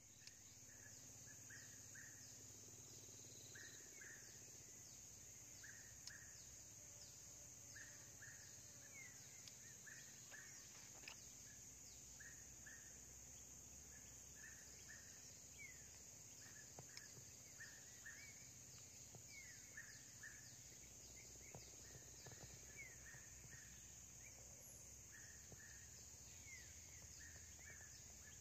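Faint natural ambience: a steady high-pitched drone of insects, with a bird's short chirps repeating in small groups every second or so throughout, some of them rising in pitch.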